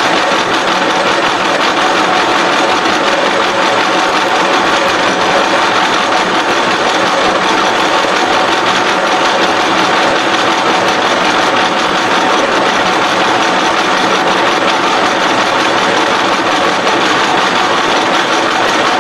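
SXA55 CNC H-beam bevelling machine running, its spindle cutter milling a bevel along the edge of a steel H-beam flange. The sound is steady and even, with a constant hum under the cutting noise.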